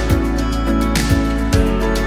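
Background music: sustained instrumental chords over a steady beat of low drum hits, about two a second.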